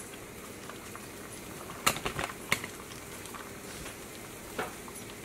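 Beaten eggs cooking in a frying pan on a gas burner: a soft, steady sizzle with a handful of sharp crackles about two seconds in and one more near the end.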